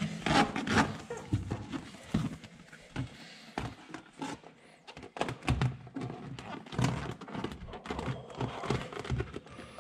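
Hands pressing and patting a sheet of foil-faced butyl sound deadener onto a car's floor and transmission tunnel, making irregular soft thumps and taps.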